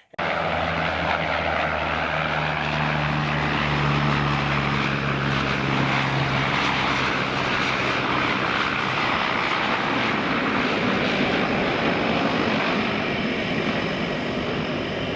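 Propeller aircraft engine running steadily, with a low drone that is strong for the first seven seconds or so and then drops away while the engine noise carries on.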